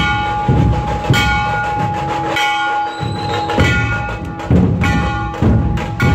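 Loud roadside percussion music: deep drum beats with bell-like metallic strikes ringing out about once a second, over one steady held tone.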